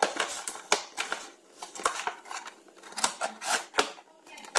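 Cardboard toy box being handled and opened by hand: irregular rustles and scrapes of the cardboard and its plastic window, with a few sharp light knocks.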